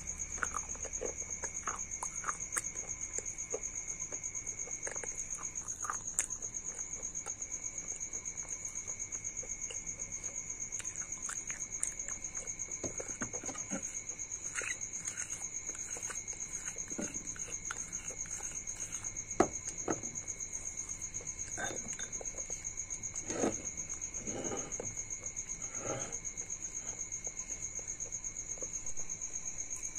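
Close-up eating sounds: scattered crunches and wet mouth clicks as broken pieces in a white paste are chewed off a plastic spoon, with the spoon scraping the glass bowl, and the loudest crunches in the second half. A steady high-pitched whine runs underneath.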